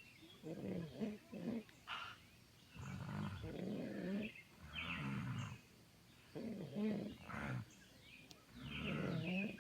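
Loud, heavy human snoring: about five rasping, low-pitched snores in a row, one every second or two, with quiet gaps between breaths.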